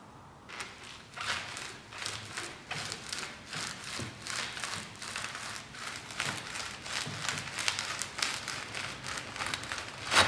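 Repeated short scratchy strokes, two or three a second, like scraping or brushing a rough surface by hand, ending with one sharp click or knock just before the end.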